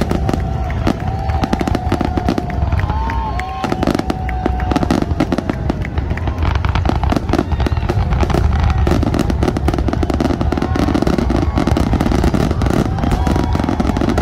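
Fireworks display firing a rapid, nonstop barrage of bangs and crackles, with short whistling tones that rise and fall in pitch over the first few seconds and again near the end.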